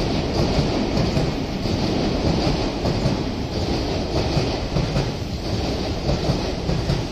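Odakyu 30000 series Romancecar EXE train passing close by, its wheels on the rails making a steady running noise.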